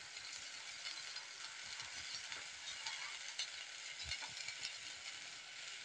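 Faint sizzling of a spiced sauce frying in a pan on a low flame, with a few light clicks from stirring and a soft knock about four seconds in.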